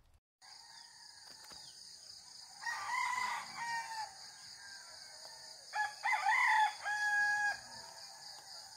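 Rooster crowing twice, a few seconds apart, over a steady high-pitched drone.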